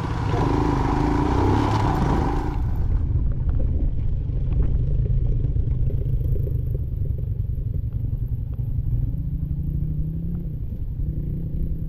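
Motorcycle engine running at low, steady speed on a rough dirt trail, with small clattering knocks as the bike rides over stones and ruts. For the first few seconds a brighter, hissier mix with another bike close alongside is heard; it drops away suddenly about three seconds in.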